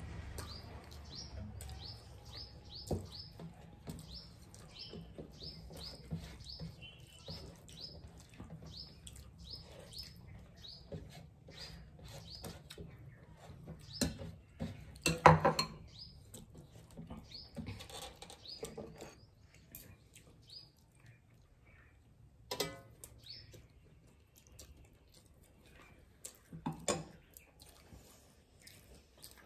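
A small bird chirps over and over, several short falling chirps a second, thinning out after about twelve seconds. Under it come the scattered clicks and knocks of people eating by hand from metal plates, the loudest a cluster about halfway through.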